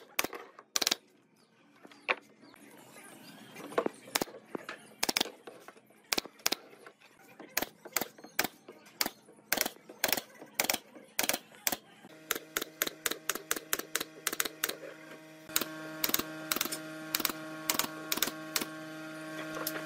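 Pneumatic brad nailer firing brads into the strips of a wooden lattice frame: sharp shots in quick, irregular succession, about two or three a second. A steady hum joins in about two thirds of the way through.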